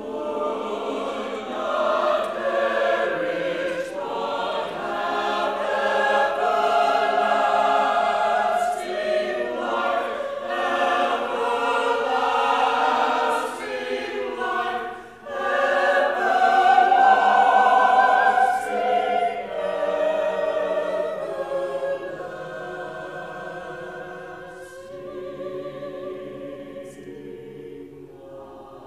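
Mixed church choir of men and women singing together, with a short break between phrases about halfway through and a quieter final third.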